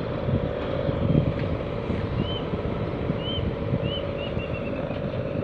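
Wind buffeting the microphone over a steady low hum. From about two seconds in, a bird gives several short high chirps, ending in a quick run of notes.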